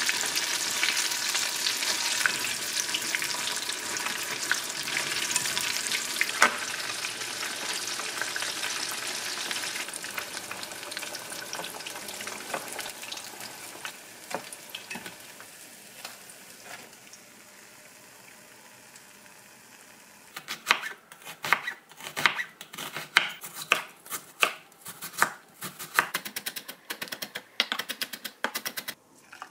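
Fish cutlets deep-frying in hot oil, a dense, steady sizzle that fades out about halfway through. From about twenty seconds in, a kitchen knife chops onion on a wooden cutting board in quick, uneven strokes, about two to three a second.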